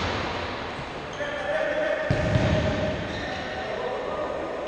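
Futsal ball being kicked and bouncing on a sports-hall floor, with one solid thud about two seconds in, echoing in the large hall.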